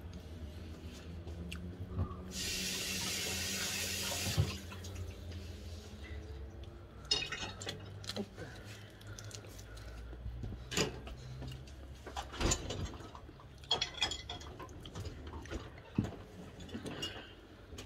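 Kitchen tap running for about two seconds, starting about two seconds in, followed by scattered small clicks and knocks from eating and handling food, over a low steady hum.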